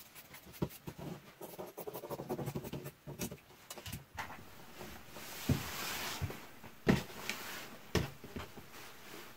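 Scissors cutting through a cotton dress shirt in a run of small snips and clicks, then the cloth rustling as the cut pieces are gathered up, with a few sharp knocks in the second half.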